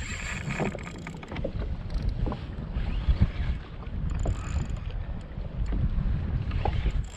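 Wind buffeting the microphone, a steady low rumble, with scattered small clicks and knocks.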